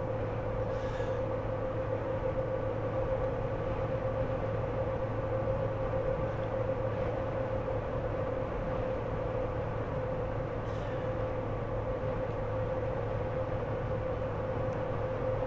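Steady background hum with a constant mid-pitched tone and a low drone under it, unchanging throughout; a couple of faint, brief scrapes sound over it.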